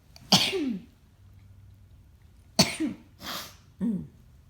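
A woman sneezing and coughing: two sharp bursts about two seconds apart, then two smaller ones near the end.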